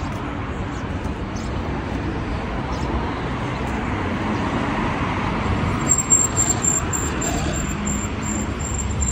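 City road traffic: a steady rush of cars passing on the street. From about six seconds in, a thin high-pitched tone pulses rapidly and evenly, about three times a second.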